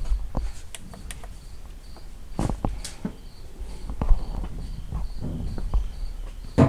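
Scattered knocks, clinks and footsteps as hand tools are moved about while searching for a 1/2-inch wrench, over a cricket chirping steadily about three times a second.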